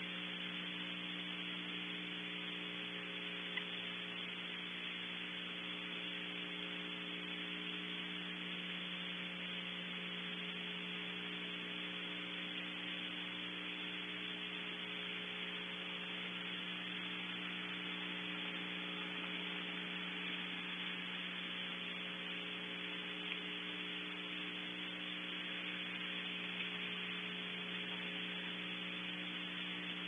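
Steady electrical hum and hiss from a nest-cam's audio feed, with two or three faint ticks.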